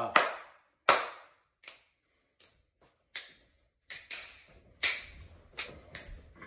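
A person clapping their hands: a series of sharp single claps about every three-quarters of a second, coming quicker near the end.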